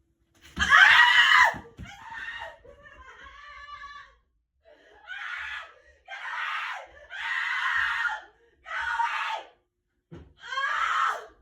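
A woman screaming in a string of about eight high-pitched shrieks, each under a second long. The first, about half a second in, is the loudest.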